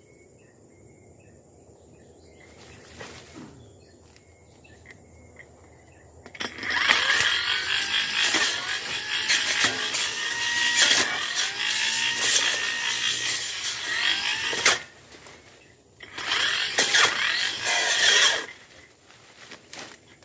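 Quiet at first, then a two-stroke brush cutter running at high revs and cutting through brush for about eight seconds, with its engine note dipping and recovering as it loads. It stops abruptly, then runs again for about two seconds near the end.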